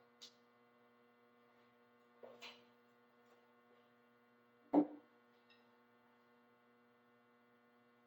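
Faint steady electrical hum picked up through the drum microphones and mixer, with a few soft clicks and knocks at about two and a half and five seconds in.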